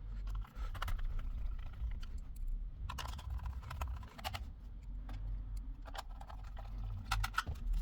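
Irregular light clicks and taps of small objects being handled, over a steady low rumble.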